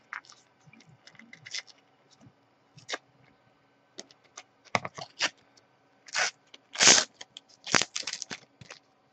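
Panini sticker packet being handled and torn open: scattered light crinkles and clicks, then a few louder tearing rips in the second half.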